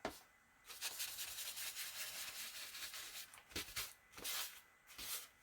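Soft rustling and rubbing of paper or craft materials being handled, with a few short rustles near the end.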